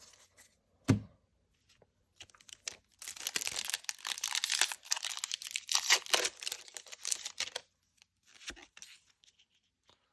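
Foil booster-pack wrapper being torn open and crinkled for about five seconds. A single sharp knock comes about a second in, before the tearing starts.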